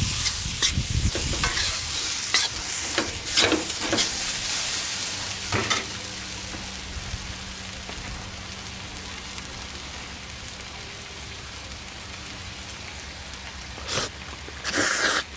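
Chow mein noodles sizzling in a hot wok as they are tossed with metal utensils, with sharp clicks and scrapes against the wok in the first few seconds. The sizzle then settles into a quieter, steady hiss, and two short loud bursts of noise come near the end.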